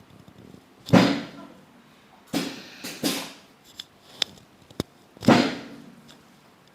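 Sharp thuds and cracks from a chiropractic adjustment on a treatment table: loud strikes about a second in, twice close together in the middle, and once more near the end, with a few lighter clicks between them.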